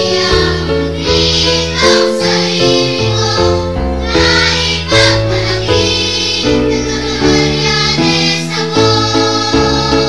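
Music: a town hymn sung in Filipino over instrumental accompaniment, with sustained notes and chords changing about once a second.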